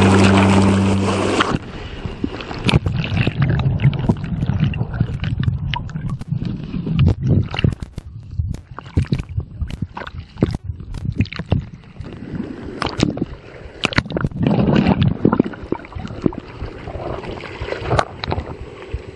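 Rock music cuts off about a second and a half in. Then kayak running down a fast creek: rushing, gurgling water with many irregular sharp knocks and splashes against the boat and camera.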